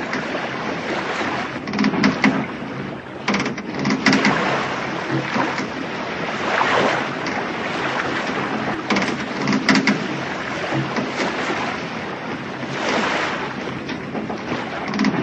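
Sailing ship sound effect: sea waves washing and wind, with short sharp sounds every second or two.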